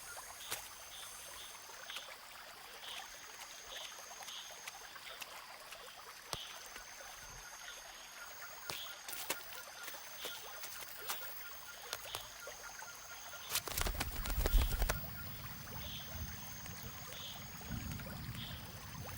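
Rainforest ambience: a high steady chirring that comes and goes in long stretches, short calls repeated about every half second to second, and scattered clicks. A louder low rumble comes about two-thirds of the way through.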